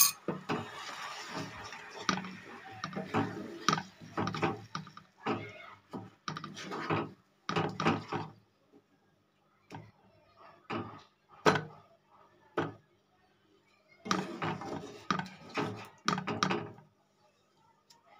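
Wooden spatula stirring and scraping a thick crushed-grape and jaggery mixture in a nonstick frying pan, in short strokes with pauses. There are a couple of sharp knocks in the middle.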